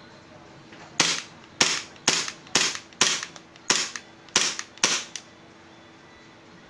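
KJW KP-13 gas blowback airsoft pistol firing about eight shots in quick succession, roughly two a second, each a sharp crack with the slide cycling.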